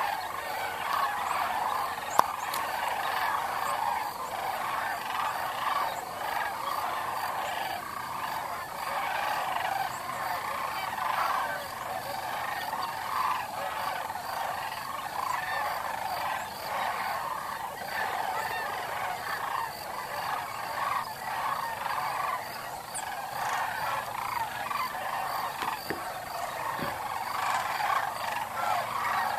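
A dense, unbroken chorus of many calling wetland animals. A single sharp click comes about two seconds in.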